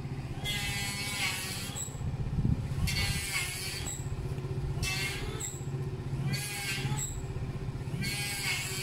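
Restricted 50cc GY6-type scooter engine idling steadily on its stand while it warms up. A rasping, scraping noise from building work repeats about every two seconds over it.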